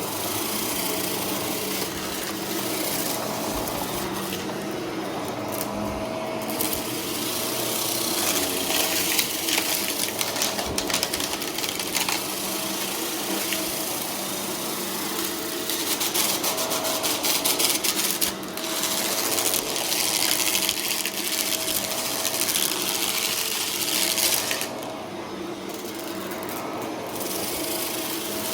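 Shark vacuum cleaner running steadily while sucking up confetti, with crackling and rattling of debris going up the intake that swells in stretches, loudest around a third of the way in and again through the second half.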